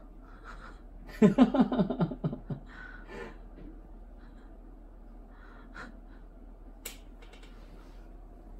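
A person's short burst of breathy laughter about a second in, lasting about a second and a half; then quiet room tone with one sharp click near the end.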